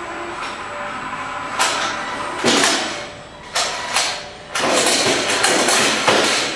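Small combat robots' electric drive motors whirring in repeated surges as the robots shove against each other in the arena.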